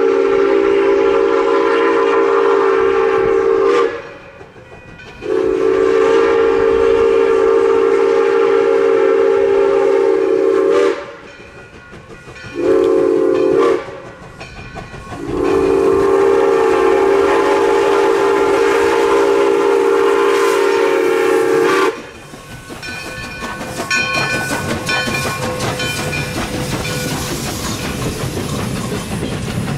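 Steam locomotive's whistle blowing the grade-crossing signal, long, long, short, long, with several tones sounding together. It then stops about two-thirds of the way through, and the train rolls past with wheels clicking over the rail joints.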